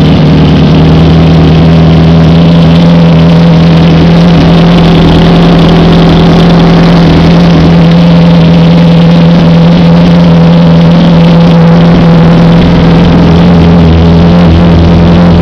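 Honda CBR600RR inline-four engine with a Jardine aftermarket exhaust, idling steadily and loud just after being started, its cylinder head freshly rebuilt with two replaced exhaust valves.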